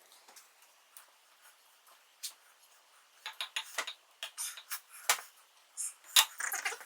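Irregular sharp metallic clicks and clinks of hand tools and small parts being handled, sparse at first and then coming thicker and louder about halfway through, with two loudest clacks near the end.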